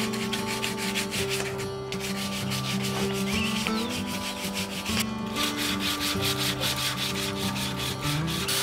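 Hand sanding the jigsaw-cut edge of a plywood board: quick back-and-forth rubbing strokes, about four a second, pausing briefly twice.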